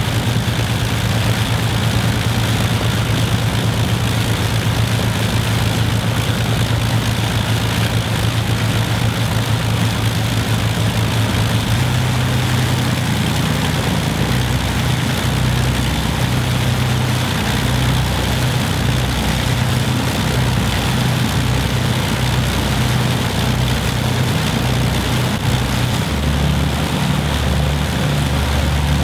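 De Havilland Mosquito's Rolls-Royce Merlin V12 engines running on the ground with the propellers turning, a loud steady drone. The engine note changes about twelve seconds in and again a few seconds before the end.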